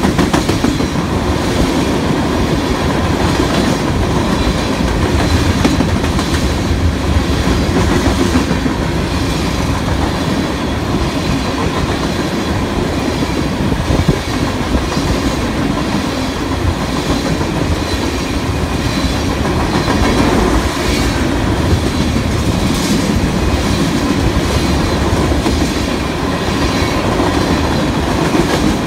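Cars of a Union Pacific coal train rolling past close by: a steady rumble, with the wheels clicking over the rail joints.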